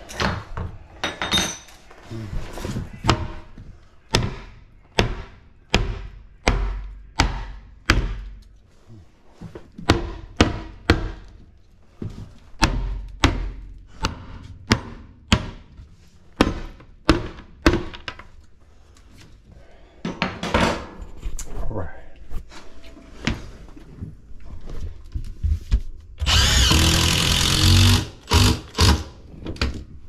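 Hammer blows on a pry bar working at a plywood floor and wall edge, a long series of sharp knocks at roughly one to two a second. Near the end a power tool runs loudly for about two seconds, then a few more knocks.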